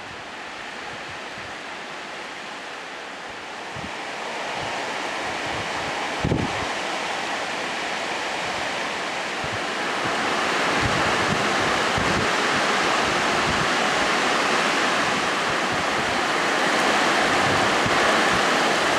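Typhoon wind and heavy rain: a steady rushing hiss that grows louder about four seconds in and again about ten seconds in, with gusts buffeting the microphone in low thumps.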